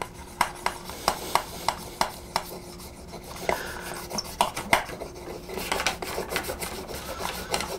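Round metal tip of a handheld heat-transfer tool rubbed in circles over iron-on transfer paper on a wooden board: a scratchy rubbing with irregular sharp ticks, a few a second.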